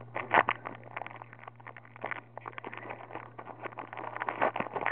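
Foil wrapper of a Pokémon card booster pack crinkling and tearing as it is opened, a rapid, irregular run of small crackles with a few louder crunches.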